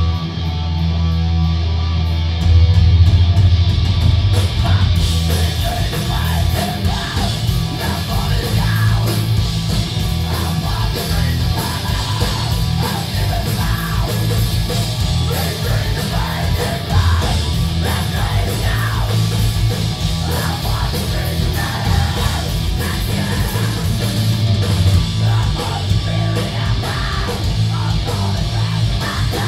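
A live rock band playing loud: distorted electric guitars, bass guitar and drums, with shouted vocals over them.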